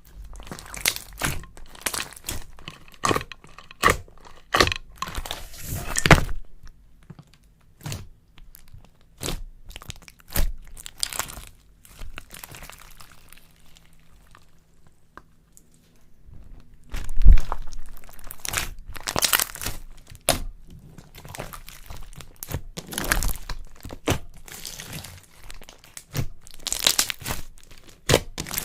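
Slime handled close to the microphone, crackling and crunching in dense irregular clusters of sharp pops and crinkles, quieter for a few seconds midway, with one loud crack about halfway through.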